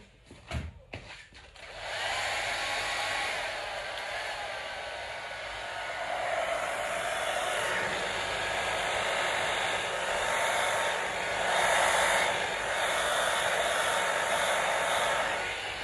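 A hairdryer switched on about two seconds in after a few handling clicks, then blowing steadily over wet poured paint, its loudness swelling and dipping a little.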